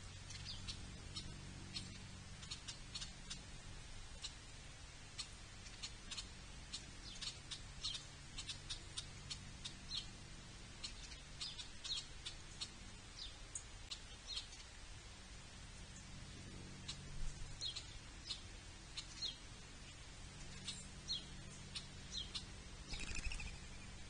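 Small birds chirping over and over, short high chirps scattered throughout, over a steady low hum.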